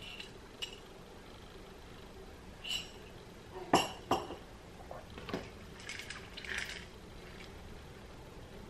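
Ceramic mug with a metal spoon in it clinking and knocking, two sharper knocks close together about four seconds in among a few lighter clicks and handling sounds.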